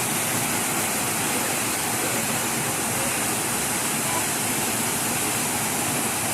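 Waterfall rushing: a steady, even roar of falling water that doesn't change.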